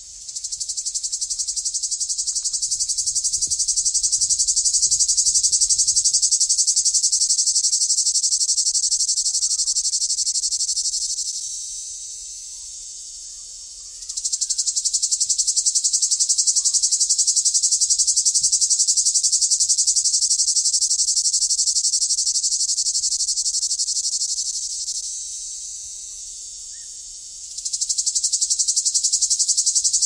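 Cicada buzzing, loud and high-pitched, with a fast, even pulse. It comes in long phrases of about ten seconds, each easing off into a quieter buzz for two or three seconds before the next phrase starts up.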